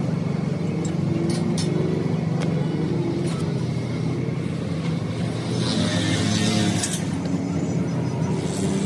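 A steady low engine drone throughout, with the hiss of a gas torch flame heating the steel axle beam rising for about a second a little past the middle, and a few light ticks early on.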